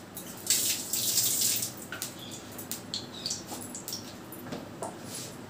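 Mustard oil heating in a wok on a gas burner, sizzling and spitting with scattered crackles and pops, and a louder hiss about half a second in that lasts roughly a second.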